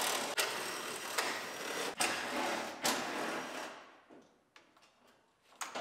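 A powered ratchet whirring as it backs out the battery tray bolts, with a few sharp clicks along the way. It stops about four seconds in, leaving a few faint ticks.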